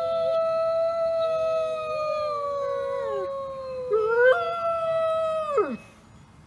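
Wolves howling together: one long, steady howl that slowly sinks in pitch, with a second, lower voice sliding up and down beneath it. About four seconds in, the howling lifts briefly, then ends with a steep downward slide.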